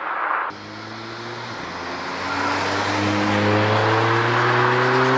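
A rush of car noise cuts off abruptly about half a second in. Then the Mercedes-AMG CLA 45 Shooting Brake's turbocharged four-cylinder engine is heard accelerating, its note rising steadily in pitch and growing louder.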